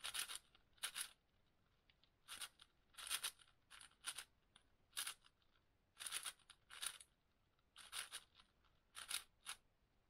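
6x6 speedcube being turned by hand: short plastic scraping clicks of the layers turning, in quick irregular flurries with brief pauses between.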